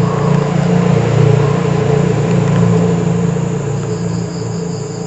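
A low rumble swells over about the first second and slowly fades, with crickets chirping.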